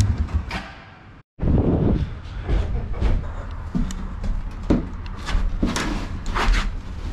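A small ATV engine is switched off at the start and its running sound dies away within about a second. After a brief cut comes a string of scattered knocks, clicks and scrapes as a motorcycle's back end is pushed over by hand.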